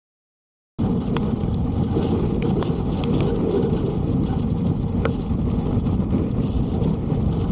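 Strong gusty wind blowing across the microphone, a dense low rumbling rush that starts abruptly about a second in, with a few light ticks on top.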